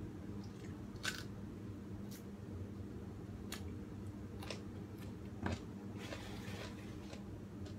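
Quiet eating sounds: scattered sharp clicks and mouth noises about a second apart as food is bitten and chewed, with a short rustle about six seconds in, over a steady low hum.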